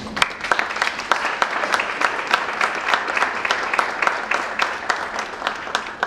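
Audience applauding, a dense run of many hands clapping that starts right away and dies off near the end.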